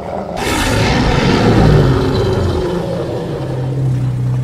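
A sudden loud crash about half a second in, followed by a low rumble that settles into a steady low drone near the end.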